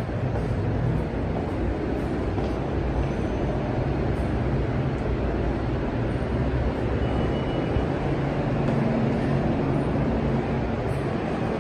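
Steady low rumble of a New York subway train in the station, with no clear rise or fall.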